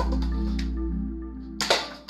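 Background music of sustained chords over a low bass, fading out over the second half. About one and a half seconds in there is a single sharp click from the toy dart blaster shooting at the paper cups.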